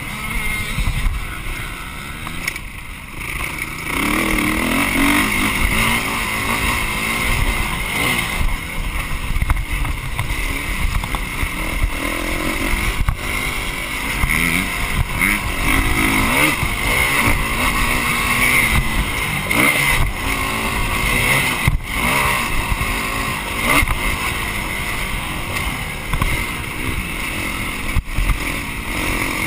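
Dirt bike engine revving up and down repeatedly as it is ridden around a motocross track, easing off briefly a few seconds in before pulling hard again.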